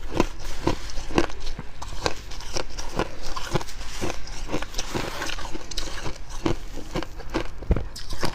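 Close-up chewing of fluffy freezer frost: dry, crunchy bites in a steady chewing rhythm of about two to three crunches a second.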